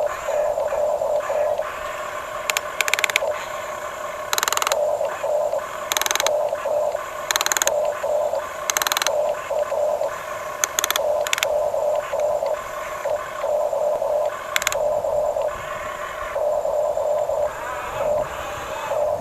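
Small electric gear motors of a radio-controlled toy construction vehicle whining in short on-off bursts as it is driven, with a dozen or so brief, louder rattling bursts of gear and track noise.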